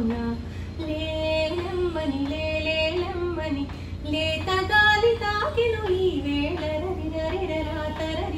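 A woman singing a slow Telugu melody, with long held notes that waver and glide in pitch.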